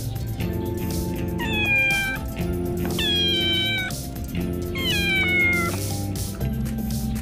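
Small tabby cat meowing three times, each meow high and falling in pitch, over background music.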